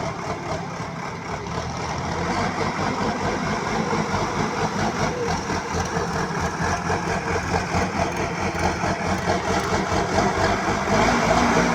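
Diesel engine of a BULL HD 76 backhoe loader running steadily with a pulsing rumble. It grows gradually louder a couple of seconds in and louder again near the end.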